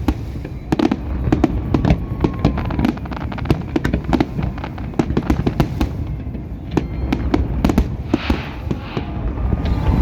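New Year fireworks display: rapid, continuous bangs and crackles over a steady low rumble.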